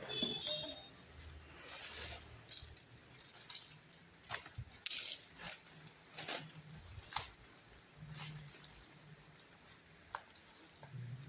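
Packaging being handled: scattered light clicks, taps and rustles at irregular intervals, with a brief squeak right at the start.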